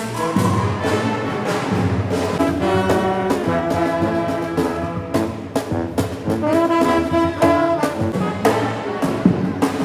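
Orchestral music led by brass, with trombone and trumpet lines over a steady beat.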